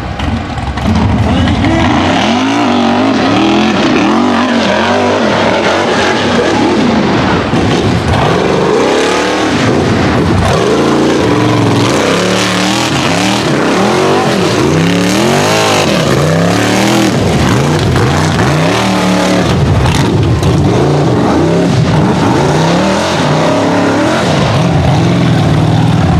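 Rock bouncer's engine revving hard, the throttle opened and backed off over and over so the pitch rises and falls about once a second, as it claws up a loose dirt hill.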